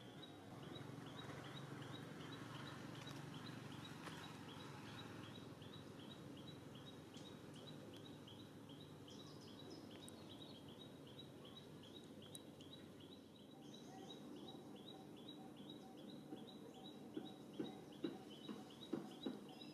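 Faint outdoor ambience: a short, high chirp repeated evenly about three times a second, over a low background hum. A few soft taps come near the end.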